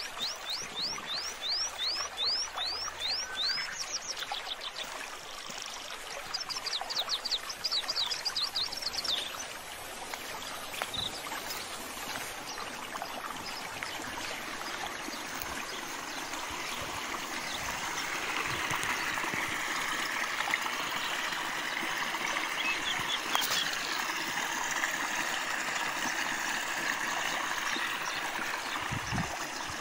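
A small bird sings two quick trills of repeated high, falling notes in the first nine seconds. Then water flowing in a small irrigation channel comes up and runs steadily through the rest, with one sharp click a little past the middle.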